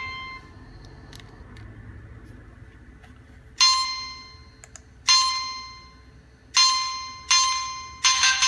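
Nokia 3220 ringtones playing. The last note of one fades out at the start, and after a pause of about three seconds a bell-like chime tone is struck five times at the same pitch, each stroke ringing out. The first three strokes are about a second and a half apart and the last two come quicker.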